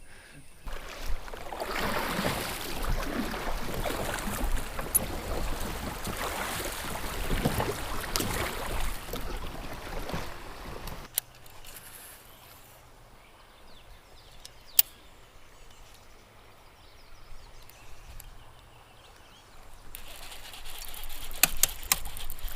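River water rushing and splashing around a kayak. The sound drops suddenly about halfway through to quieter moving water with one sharp knock, then builds again near the end with a few sharp knocks.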